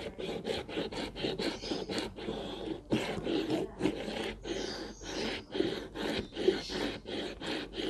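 Cold milk being frothed by hand in a tall container to make cold foam: a rhythmic swishing, about four strokes a second, without a break.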